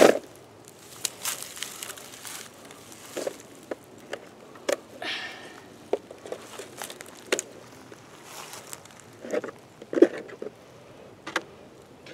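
Scattered clicks, knocks and rustles of hands handling a mud-caked RC rock crawler and its hard plastic Jeep body in grass and leaf litter, with footsteps through dry leaves at first.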